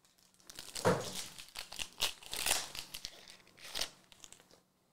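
Trading-card pack wrappers crinkling and cards being handled, in a few short, irregular bursts.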